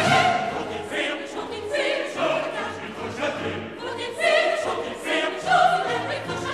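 Opera chorus and full orchestra: the chorus sings short, overlapping exclamations in French, in separate bursts about once a second, over the orchestra.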